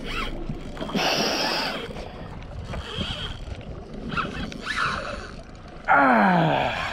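Penn Spinfisher 6500 spinning reel under load from a hooked fish: short bursts of reel noise as the drag gives line and the handle is cranked, over wind on the microphone. A loud falling groan-like tone sounds near the end.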